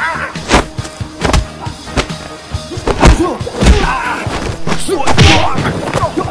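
Punch and kick hit sound effects from a martial arts fight, several sharp thuds and whacks in quick succession over an action music track.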